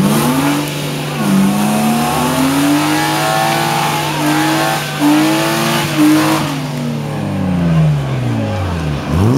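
Car doing a burnout: the engine is held at high revs, climbing and dipping again and again, over the hiss of spinning tyres. About six and a half seconds in the tyre noise fades and the revs fall away, then they rise again at the very end.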